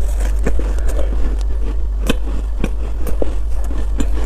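Close-miked crunching and chewing of a mouthful of crumbly ice dusted with matcha powder, in irregular crisp bites, over a steady low hum.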